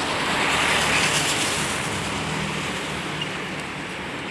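Road traffic noise, a steady rush that swells about a second in and then slowly fades.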